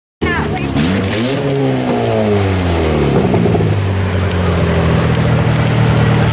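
Sport compact race car engine revving, its pitch rising and falling several times, then settling into a steady, even run for the last few seconds.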